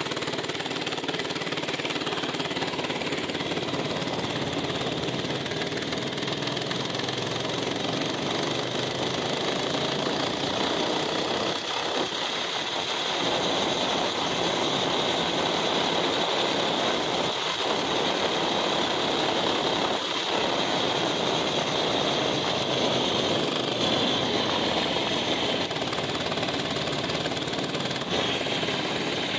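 Small mini bike engine, about 80 cc, running under way as the bike is ridden, its pitch rising and falling a little with the throttle.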